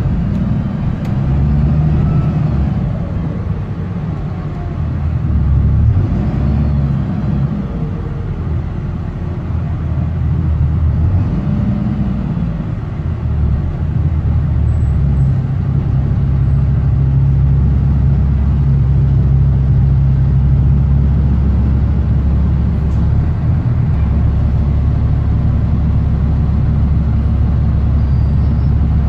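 BMC Condor bus engine with a blown exhaust, heard from inside the passenger saloon as a loud low drone. Its pitch rises and falls a few times over the first dozen seconds as the bus pulls along, then holds steady.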